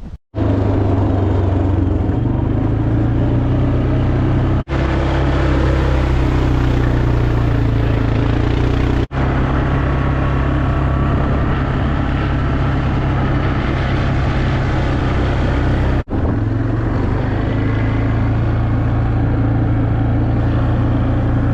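A vehicle driving along a rough track: its engine and road noise make a steady low drone. The sound cuts out briefly four times.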